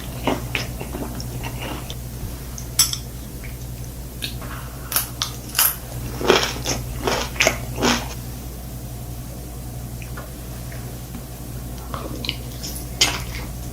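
Close-miked chewing and biting of food, a run of sharp crisp crunches clustered in the middle, with a few more near the end.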